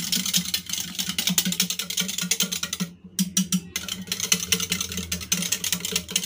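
A wire balloon whisk beating thick curd in a small stainless steel bowl, its wires clicking rapidly against the metal, with a brief pause about three seconds in. The curd is being whisked smooth and free of lumps.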